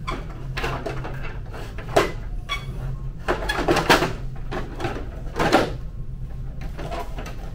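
Plastic end cover of an HP DesignJet T120 printer being pressed and fitted into place: several knocks and scrapes of hard plastic, the loudest about two, four and five and a half seconds in, over a steady low hum.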